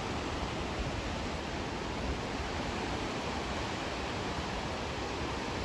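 Steady rush of ocean surf washing against a rocky shore, an even hiss with a low rumble underneath.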